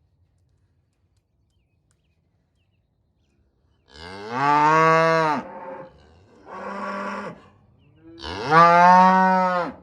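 A cow mooing three times in a row after about four seconds of near silence; the middle moo is quieter and shorter than the other two.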